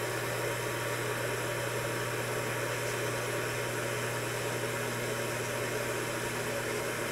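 Steady low hum with an even hiss over it, unchanging throughout: room tone from running equipment.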